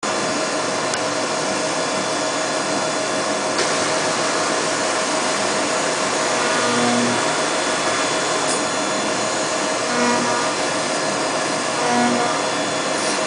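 5-axis CNC milling machine cutting a metal sump block under flood coolant: a steady rush of coolant spray and cutting noise with a steady tone running through it, swelling briefly a few times as the cutter works.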